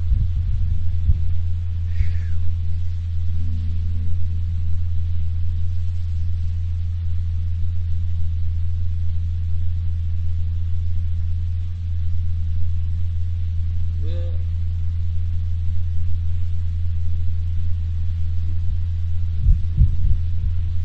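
Loud, steady low electrical mains hum from the sound system, with several even overtones. There are a few low thumps near the start and near the end, and faint voices briefly in the background.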